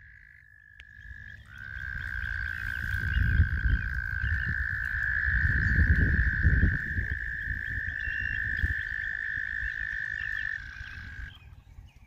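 Frogs calling at a pond: one long, unbroken high trill that stops about eleven seconds in. Beneath it, a low rumble like wind on the microphone swells for several seconds in the middle.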